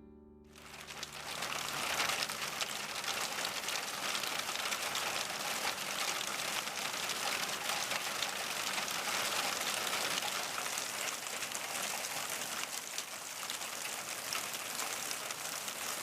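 Steady noise of water with a fine, dense patter, fading in after a guitar tune cuts off at the very start.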